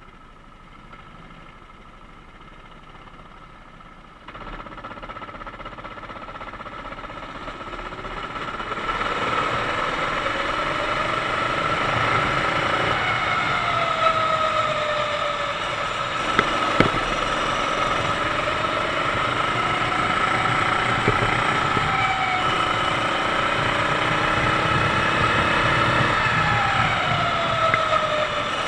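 Sodi kart's 390cc four-stroke engine heard onboard: quiet at first, then louder as the kart pulls away about four seconds in and again around nine seconds, then running hard with its pitch falling and rising through the corners. A couple of sharp knocks midway.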